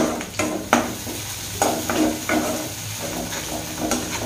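Metal slotted spatula stirring and scraping onion-capsicum masala around a kadhai, with several sharp scrapes and clinks against the pan over the steady sizzle of the frying mixture.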